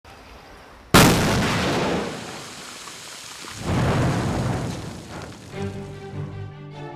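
Rock blasting on an excavated mountain slope: a sudden boom about a second in that dies away over about a second, then a second, slower-rising boom at about three and a half seconds. Background music comes in near the end.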